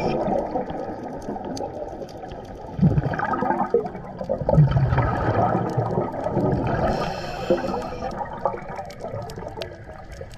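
Scuba diver breathing through a regulator underwater: exhaled bubbles gurgle out in loud surges about three and five seconds in, a hiss follows about seven seconds in, and small sharp clicks are scattered throughout.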